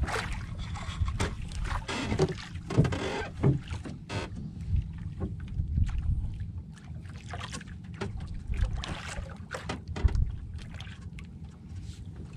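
Small wooden fishing boat at sea: a steady low rumble, with frequent short knocks and clicks as fishing line, hooks and bait are handled against the hull.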